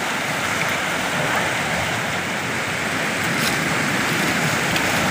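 Steady wash of sea waves on a rocky shore.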